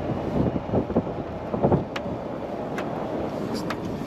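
Ford Bronco moving slowly over snow: steady vehicle running noise with a few low thumps between about half a second and two seconds in, and several sharp clicks near the end.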